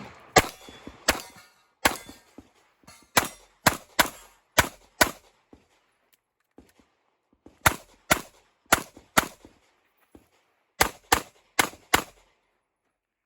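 Glock 17 Gen 5 9mm pistol firing rapid shots in quick strings, with short pauses between strings, the steel targets ringing as they are hit.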